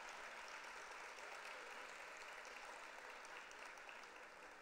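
Faint audience applause, a steady patter of many hands clapping that tapers slightly near the end.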